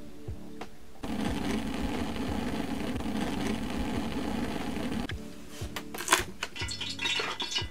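A dense, steady rattling rustle for about four seconds, then a knife chopping green bell pepper on a metal tray in quick, irregular sharp knocks, over background music.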